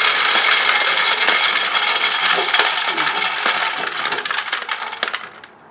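Hickory wood pellets pouring out of a Traeger grill's hopper down an aluminum chute into a plastic bucket: a dense stream of rattling clicks that thins to scattered ticks over the last couple of seconds and stops near the end.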